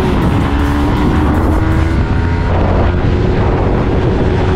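Motorcycle engine running steadily at speed, its pitch shifting slightly now and then, over heavy wind rumble on the microphone.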